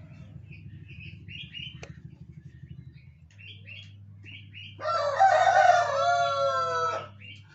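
Rooster crowing once, a loud drawn-out crow of about two seconds starting about five seconds in, falling slightly in pitch at the end. Before it, short soft chirps come in pairs.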